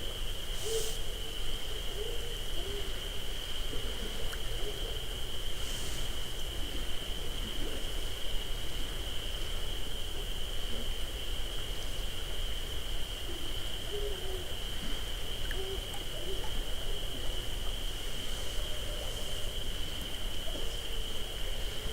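Night insects, likely crickets, trilling steadily at one high pitch, with many short, faint, low wavering calls scattered through it from an unidentified animal. A steady low hum lies underneath, and soft hisses come near the start and about six seconds in.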